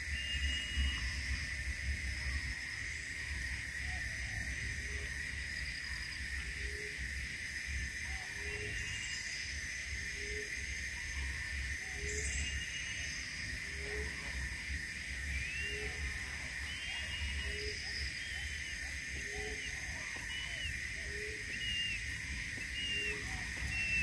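Forest ambience: a steady high insect drone over a low rumble, with a low note repeated a little less than once a second from about five seconds in, and short high bird chirps in the second half.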